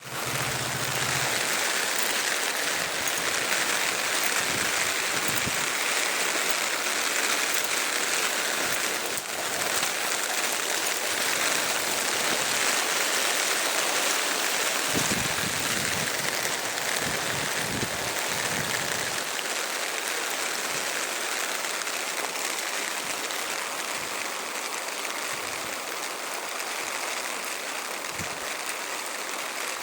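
Rain falling steadily, easing slightly in the second half.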